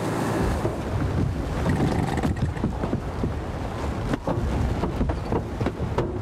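Wind buffeting the microphone and rough water churning around a small open boat at sea, with a few sharp knocks or splashes against the hull.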